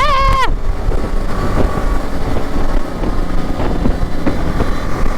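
Motorcycle riding at speed, a single-cylinder engine running under a steady rush of wind on the microphone. A short pitched sound that glides in pitch ends about half a second in.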